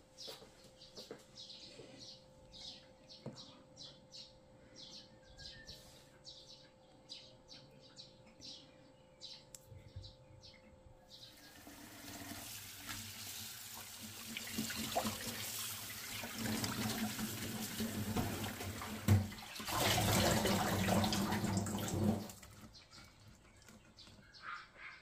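Tap water running into a plastic bowl in a stainless-steel sink, starting about halfway through and growing louder before it stops near the end. Faint high chirps are heard before the water starts.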